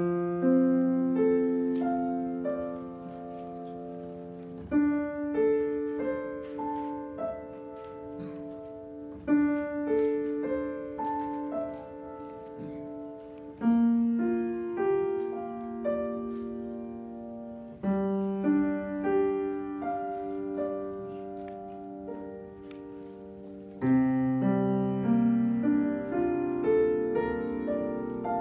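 Steinway grand piano played solo. Slow phrases of held notes each begin with a louder stroke every four to five seconds and then fade away.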